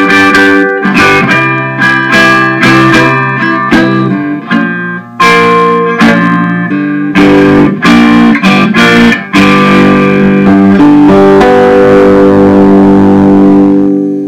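Homemade cigar box guitar played in a run of strummed chords and picked notes, ending on a chord that is left to ring and begins fading near the end.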